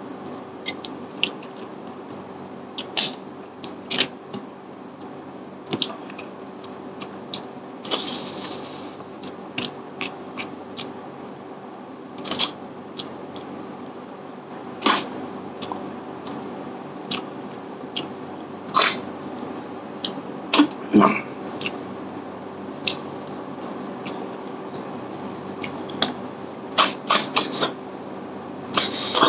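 Close-up eating sounds of snail curry eaten by hand: irregular wet smacks, clicks and chewing, with a few longer slurps as the snail meat is sucked out of the shells. A faint steady hum runs underneath.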